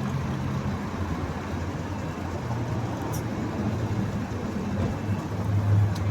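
Jeep Grand Cherokee engine idling with the air conditioning running: a steady low hum under an even whooshing noise, the hum shifting slightly in pitch twice.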